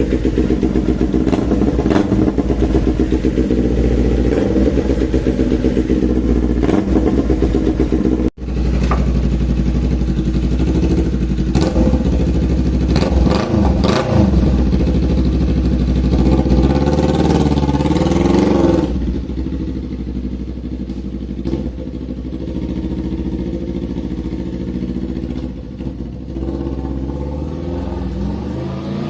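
Motorcycle engine running through a newly fitted Austin Racing carbon aftermarket exhaust, revved a few times around the middle, then dropping back to a quieter idle about two-thirds of the way in.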